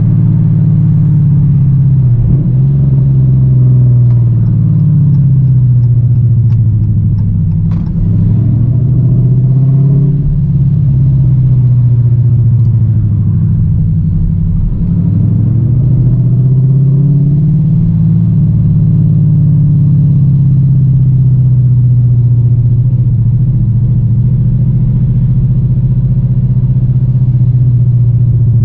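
V8 engine and exhaust running loud and low while the car drives, the revs falling and climbing again several times as it accelerates and shifts.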